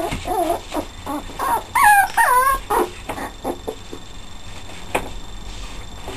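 Puppies at play, giving a run of short yips followed by two louder, high whining yelps about two seconds in, then quieter scuffling.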